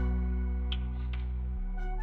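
Background music: a soft ambient tune with held bass notes, a melody moving above and a couple of light struck accents.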